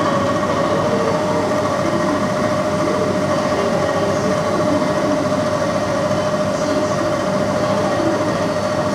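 Sanyo 280-class R22 package air conditioner running in heating mode: a steady mechanical drone with a constant tone held through it.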